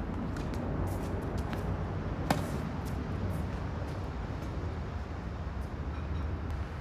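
Tennis rally: a racket strikes the ball with one loud, sharp pop about two seconds in, and fainter pops of distant strokes and bounces come and go. A steady low rumble runs underneath.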